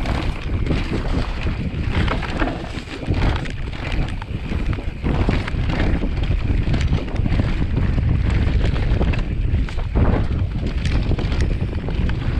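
Wind buffeting the microphone over the steady rumble of a mountain bike rolling on rough trail, with irregular knocks and rattles from the bike.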